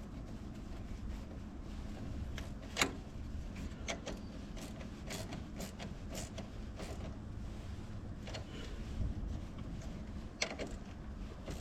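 Scattered small clicks and knocks of hand work, with a sharper click about three seconds in and another near the end, over a low steady rumble.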